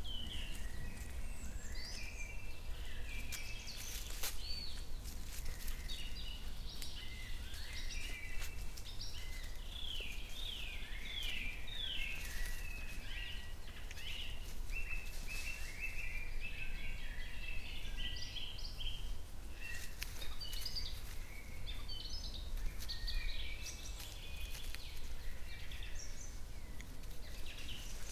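Several small songbirds singing and calling, a busy run of short chirps and quick sweeping notes that thickens in the middle, over a steady low rumble.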